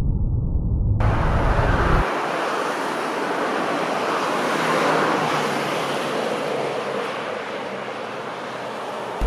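Road traffic on a multi-lane road: an even hiss of tyres and engines from cars passing and braking, swelling a little around the middle. It opens with a second or so of muffled, deep rumble from slowed-down playback before the normal-speed sound cuts in.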